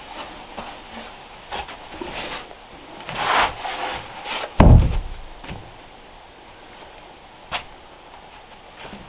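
A heavy wooden plank being handled: wood knocking and scraping, then one loud, deep thud about halfway through as it is set down, with a single sharp knock near the end.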